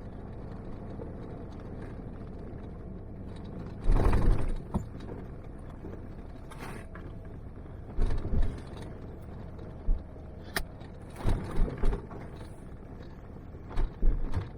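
Off-road vehicle driving a rough dirt trail, with a steady engine and tyre drone. Loud thumps and rattles come as it jolts over bumps and holes: about four seconds in, around eight, in a cluster near twelve, and again near the end.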